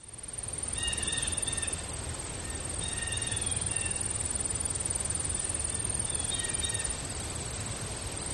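Outdoor nature ambience: short bird chirps about a second in, around three seconds and again near seven seconds, over a steady high-pitched buzz and a low rumble.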